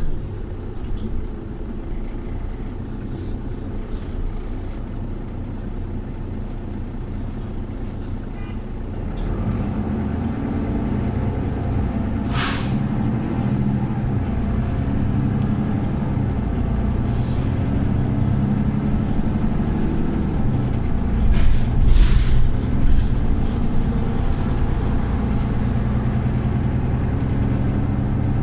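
Mercedes-Benz Citaro bus engine running, heard from on board, its note getting louder about a third of the way in. Over it come several short hisses of air from the bus's air system, the bus 'sneezing'.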